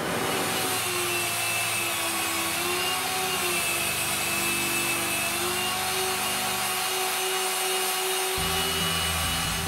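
Belt sander running steadily while small wooden discs are pressed against the moving sanding belt: a constant motor whine mixed with the rasp of wood rubbing on the abrasive, its tone wavering slightly as the work is pushed in.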